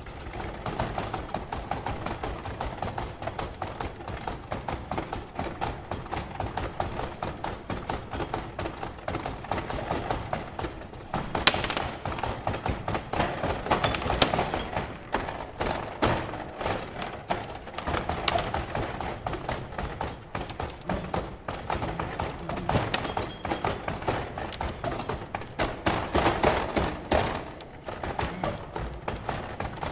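Foosball table played hard: a dense, irregular clatter of knocks as the rods are jerked and spun and the ball and plastic players strike each other and the table, with a few louder hits along the way.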